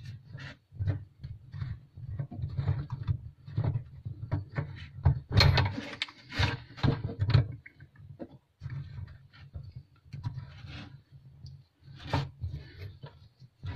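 Irregular rubbing, scraping and knocking as a dishwasher inlet hose's threaded fitting is handled and screwed by hand onto a water tap. The busiest, loudest stretch comes about halfway through.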